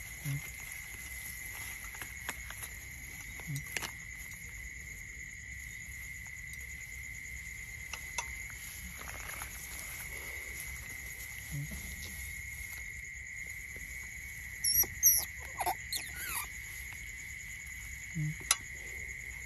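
Eurasian otter pups giving short, high squeaks that sweep up and down, several in a loud cluster about fifteen seconds in and one more near the end, over a steady high electrical whine.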